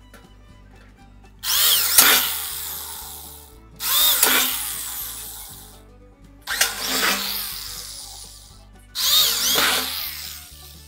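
Electric drill boring four holes through the wall of a metal 55-gallon drum, one after another. Each hole is a burst of about two seconds that starts loud and tails off, with short pauses between.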